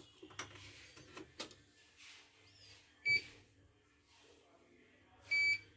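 Two electronic beeps from a portable CNY embroidery machine's control panel: a short one about three seconds in and a longer one near the end, as the machine tries to read a USB stick and fails to import the data. A few faint clicks come before them.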